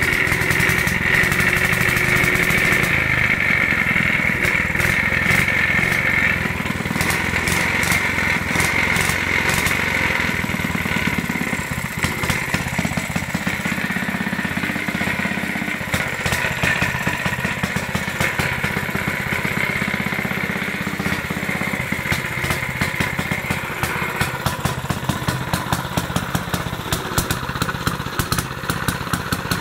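Villiers Mk 10 single-cylinder two-stroke stationary engine running steadily at a fast even firing beat, its individual firing strokes becoming more distinct in the last few seconds.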